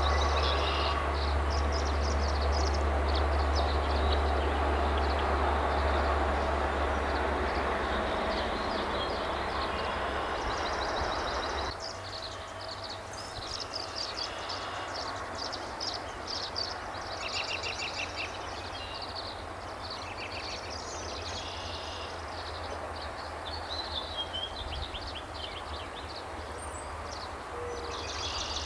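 Small birds chirping and twittering again and again in short high calls and trills, over a steady low rumble that cuts off abruptly about twelve seconds in.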